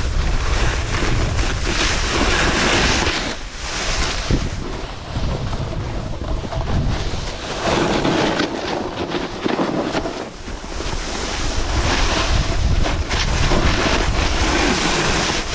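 Wind buffeting the microphone over a snowboard hissing and scraping across snow, swelling and fading in surges as the board slides downhill.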